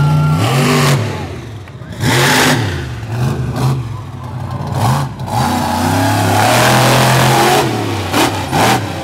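Wicked Sickness monster truck engine revving hard in repeated throttle blips, the pitch rising and falling, with a long high-rev pull in the middle. Several short, loud bursts of noise cut in about two, five and eight seconds in.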